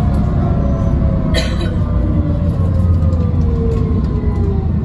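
TransBus Trident double-decker bus heard from inside the saloon while under way: the Cummins ISCe engine and Voith DIWA driveline give a heavy low drone with a thin whine that slowly falls in pitch. One brief sharp rattle comes about a second and a half in.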